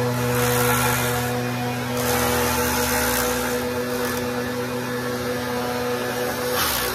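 Stihl BR 430 backpack leaf blower's two-stroke engine running steadily at speed, its air blasting through a long PVC pipe extension into a roof gutter, with the rushing air noise swelling louder in several surges.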